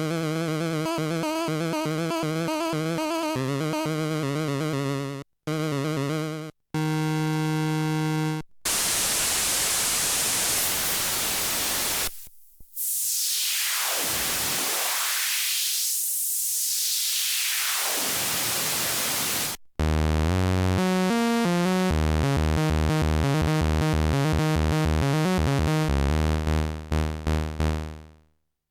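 Arturia MicroFreak hybrid synthesizer playing a string of presets: a held tone with wavering overtones, a couple of short held notes, then a long stretch of hiss swept down by the filter and back up again. About two-thirds of the way through, a rhythmic sequenced pattern with low bass notes takes over and fades out near the end.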